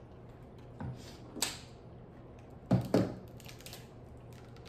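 Crab-leg shells cracking and snapping as they are broken apart by hand: a few sharp cracks, the loudest a pair close together about three seconds in, followed by small clicks.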